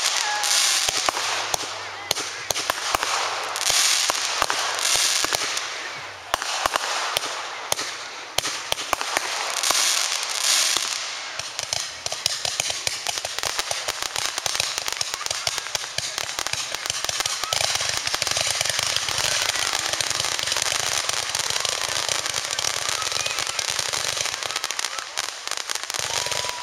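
Fireworks going off: shells bursting amid dense crackling, with a few louder bursts of crackle in the first ten seconds or so, then a steady, rapid crackle of crackling stars through the rest.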